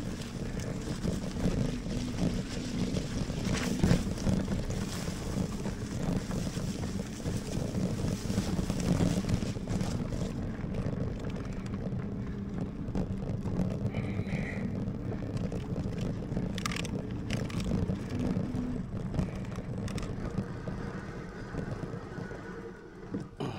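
Lectric XPeak fat-tyre electric bike ridden along a muddy dirt trail: steady tyre and drivetrain rumble with scattered knocks from bumps, and wind on the microphone. It goes quieter near the end as the bike slows.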